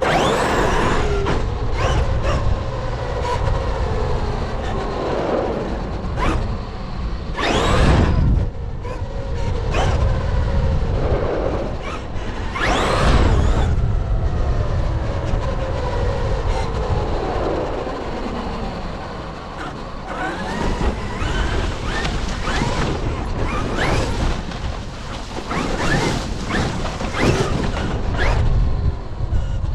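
RC car's motor running hard, its pitch rising and falling as it speeds up and slows, over a steady low rumble of wind and tyres. There are several brief loud rushes of noise, the strongest about eight and thirteen seconds in.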